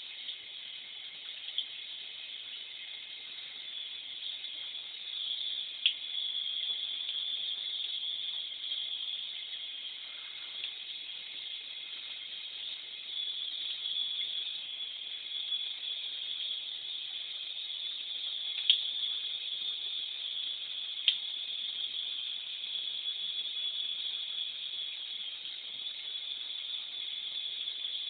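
Steady hiss of water running in a bathtub, broken by three sharp clicks.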